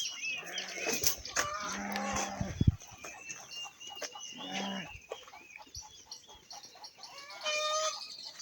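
Farm animals calling: three bleats, the last one higher-pitched, with chickens clucking and chirping around them.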